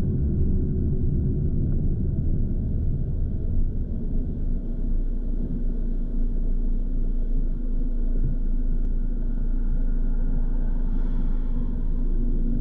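Low, steady rumble of a car on the move: road and wind noise.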